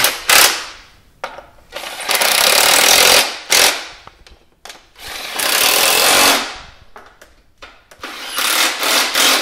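Electric impact wrench running the ignition coil pack's mounting bolts down tight, in bursts. There are two longer runs of about a second and a half each, a couple of short blips around them, and several quick blips near the end.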